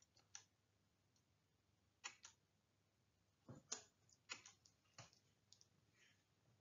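Faint, irregularly spaced clicks and taps, about ten of them, over a low steady hum.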